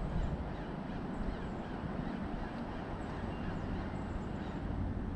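Wind buffeting the microphone: a steady, uneven low rumble. Faint bird chirps come through above it.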